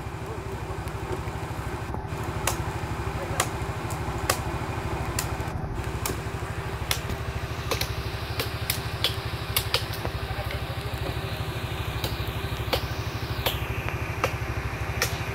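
A vehicle engine idling steadily, with sharp clicks or knocks at irregular intervals over it.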